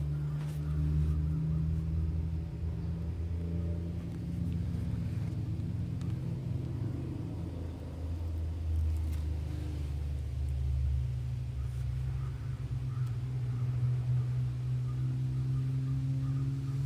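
Steady low rumble of an engine running, its pitch shifting slightly about two-thirds of the way through.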